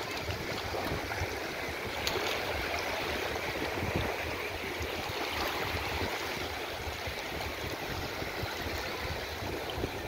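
Small sea waves lapping and washing over the shallows at the shore, an even, steady wash of water.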